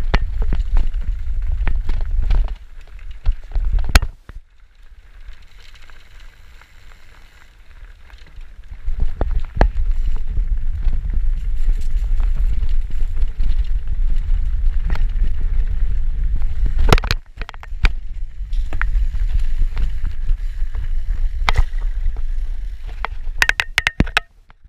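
Wind buffeting an action camera's microphone as a bicycle rides fast along a rough dirt forest trail, with knocks and rattles from the bike over the ground. It eases off for a few seconds early on, then returns, and a quick burst of clatter comes just before the end.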